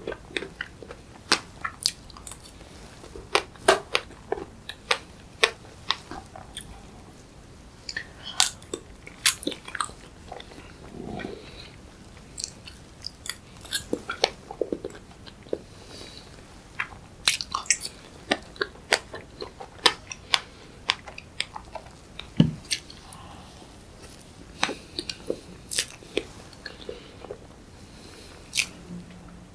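Mouth sounds of a person eating strawberry fresh-cream cake: chewing with frequent, irregular sharp clicks. One dull bump about three quarters of the way through is the loudest sound.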